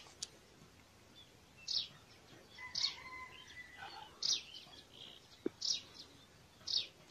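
A bird calling with short high chirps, about five of them, one every second or so. The calls are fairly faint.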